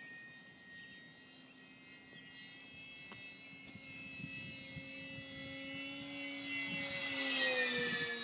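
Electric motor and propeller whine of a Parkzone P-47 RC model plane in flight, growing louder as it comes in, then dropping in pitch as it passes overhead near the end.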